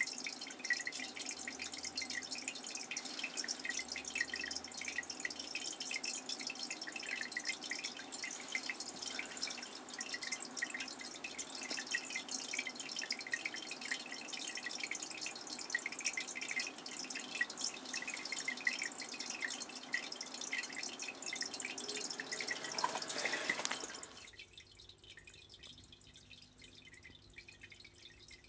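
Water dripping and trickling: a dense, irregular patter of small drips. It cuts off abruptly about 24 seconds in, leaving only a faint steady hum.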